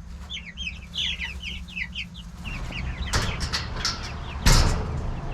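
Young Cornish Cross meat chicks peeping over and over in short high calls, giving way to rustling and scuffling, with a louder burst of noise about four and a half seconds in.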